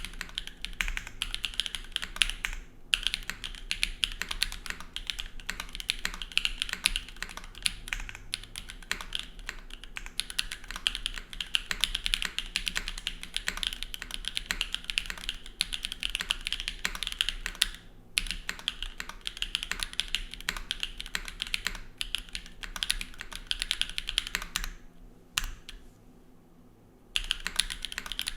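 Custom TYP60 SL mechanical keyboard with stock SWK Catmint switches, GMK keycaps, a full aluminium plate and O-ring mount without foam, typed on fast and continuously. There are brief pauses about 3 s and 18 s in, and a longer pause of about two seconds near the end.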